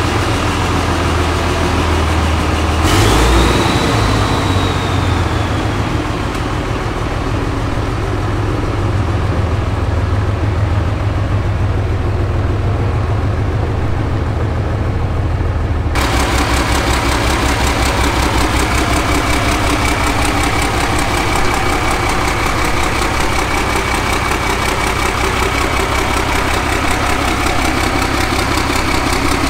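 Alvis Stalwart Mk2's newly fitted turbo diesel engine running as the six-wheeler pulls out of the shed, with a whine that rises and then slowly falls about three seconds in. After a cut, the diesel idles steadily with a constant whine.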